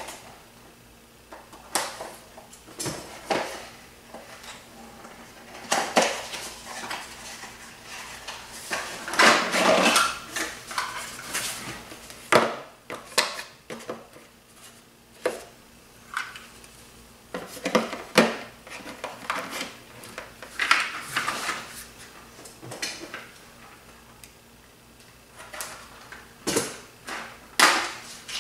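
Drone kit parts and packaging being unpacked by hand: irregular clicks and knocks of hard plastic pieces set down and moved, with bursts of rustling, the longest about ten seconds in and again around eighteen to twenty-one seconds in.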